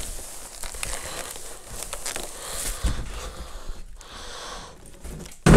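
Plastic wrapping crinkling and a cardboard box rustling and scraping as a bagged microwave oven is lifted out of its box, with a single loud thump near the end.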